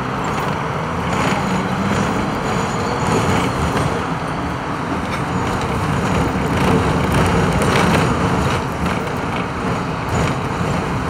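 Hong Kong double-decker electric tram running along its track, heard from inside the upper deck: steady running noise from wheels on rails and the car body, with a few faint clicks and knocks scattered through it.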